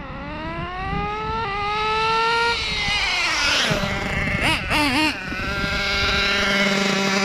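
Kyosho Inferno GT2 RC car's small nitro engine revving: the pitch climbs for a couple of seconds, drops away, two quick throttle blips, then settles to a steady idle. The owner thinks the mixture is a touch on the rich side.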